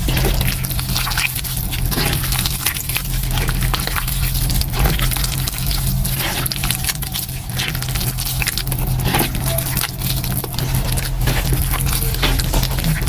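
Hands squeezing and kneading wet gym chalk paste mixed with crumbled chalk chunks: continuous wet squelching with dense, irregular crackling as the chunks break down in the paste.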